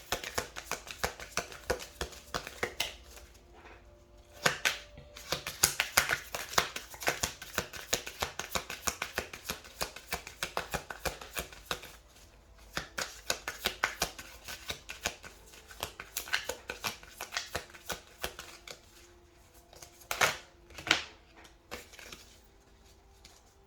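Tarot cards being shuffled and handled: long runs of quick papery clicks, with two louder snaps near the end.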